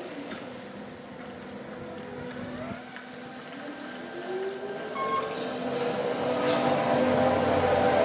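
ETI/Škoda 14TrSF electric trolleybus pulling away and passing close by: its Škoda traction motor whines, rising steadily in pitch as it accelerates and growing louder as it nears. A few short high chirps sound over it.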